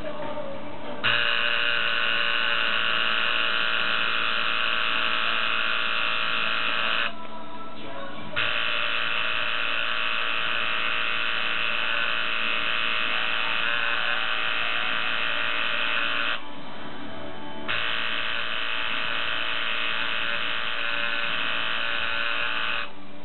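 Electric tattoo machine buzzing steadily as its needle works into the skin. It runs in three stretches of about six, eight and five seconds, stopping briefly twice in between.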